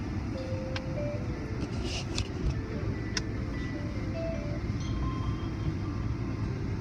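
Automatic tunnel car wash heard from inside the car: water spray and cloth brushes washing over the windshield and body, a steady low rush of noise with a few sharp slaps of water or brush against the glass.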